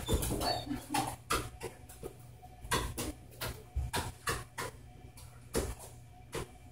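Irregular light clicks and taps, one or two a second, as a dog shifts its feet on a treadmill deck and raised platform and takes treats from a hand, over a low steady hum.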